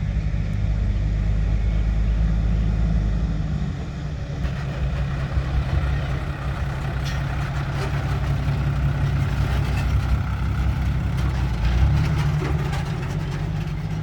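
Heavy diesel dump truck engine running, deep and steady, its sound changing about four seconds in, with rattles and clicks over it in the second half.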